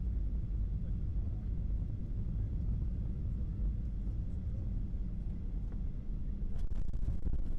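Cabin noise inside a Boeing 737-800 on landing: a steady low rumble of airflow and engines as the jet comes down over the runway and rolls along it, getting a little louder near the end.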